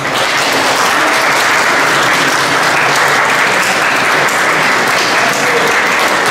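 Steady applause from a crowd of spectators, many hands clapping at once without letting up.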